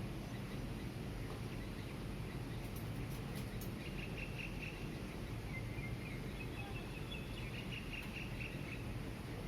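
Steady low hum of distant city traffic. From about four seconds in, a small bird chirps in quick repeated high notes for several seconds.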